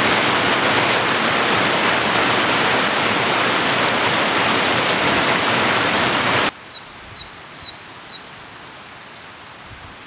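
A shallow mountain stream rushing over rocks, a loud steady splashing that cuts off abruptly after about six and a half seconds. A much quieter outdoor ambience follows, with short high chirps repeating a few times.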